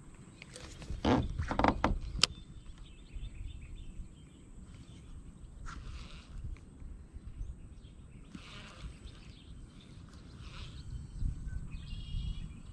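Lew's Speed Custom Pro baitcasting reel cranked in short spurts as a jig is worked back, over a steady low rumble. A few loud knocks, rustles and a sharp click of rod and reel handling come about a second in.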